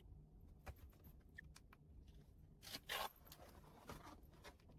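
Near silence with a few faint handling noises: small soft clicks and a brief soft rustle about three seconds in.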